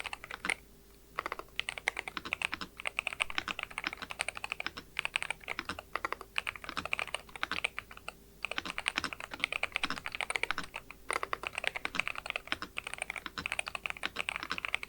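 Typing on a LEOBOG A80RT Hall-effect keyboard with Ash Wood magnetic switches: a rapid, continuous run of keystroke clacks, with short pauses about a second in and about eight seconds in.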